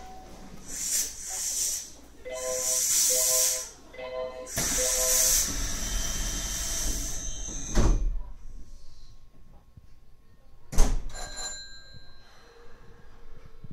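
Inside a Nankai 8300 series commuter train: a short three-note chime repeats about five times, over three bursts of loud hissing air. Then come two heavy thuds, about eight and eleven seconds in, over a low steady rumble.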